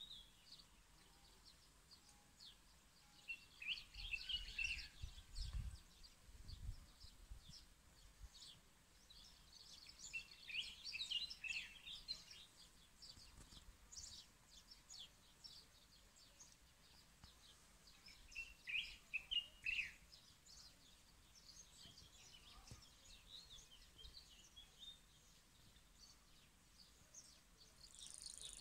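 Faint outdoor ambience with small birds chirping in three short bouts of song several seconds apart, and scattered chirps between them. A brief low rumble comes with the first bout.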